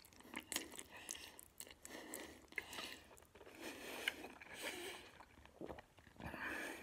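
A person slurping up and chewing a mouthful of instant ramen noodles, with many short wet clicks and sucking sounds.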